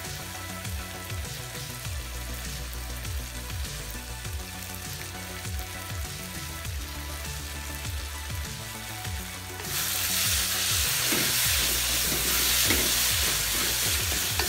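Tomato, onion and bean-paste mixture frying in a hot metal wok. A loud sizzle starts about two-thirds of the way in as it is stirred with a spatula, over background music.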